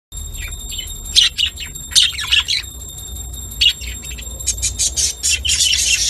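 Budgerigars chirping and chattering: scattered sharp chirps in the first half, turning into dense, fast chatter from about two-thirds of the way in.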